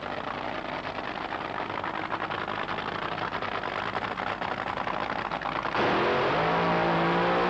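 The Cannonball funny car's 484-cubic-inch Keith Black V8 runs with a rapid, rough crackle. About six seconds in it revs sharply up and holds high revs as the rear tyres spin in a smoking burnout.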